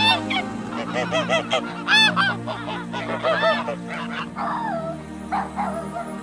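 A flock of white domestic geese honking: many short calls overlapping, thickest in the first four seconds and sparser near the end.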